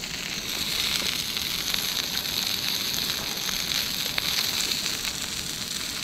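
Marinated meat and a bratwurst sizzling in a hot frying pan: a steady hiss with faint crackles.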